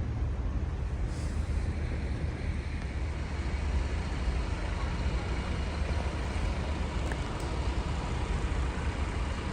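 Steady low rumble of road traffic, with heavy vehicles such as buses or trucks in the mix.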